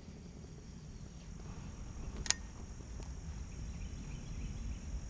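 Lakeside summer ambience: a steady high insect chirring under a low rumble, with one sharp click about two seconds in.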